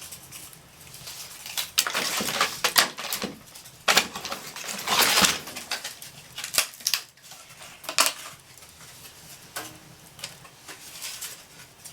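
Thin wooden crate sticks clattering and knocking as they are handled and laid on a newly lit fire, with a longer scraping rustle about four to five seconds in.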